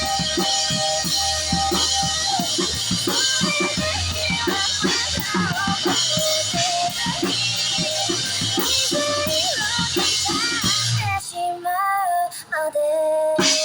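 Music with a drum kit beat and a sung melody line; the drums and bass drop out about eleven seconds in, leaving only the wavering melody.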